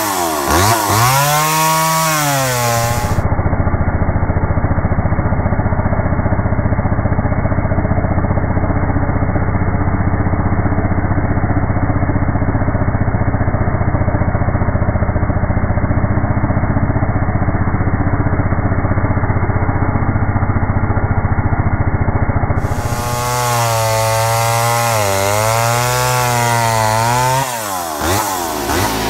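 A Skil 1631 69 cc two-stroke chainsaw revving up and down and cutting through a pine log. For most of the middle the sound is slowed down to a low, steady, dull engine note with the highs gone. It returns to normal speed near the end with more revving.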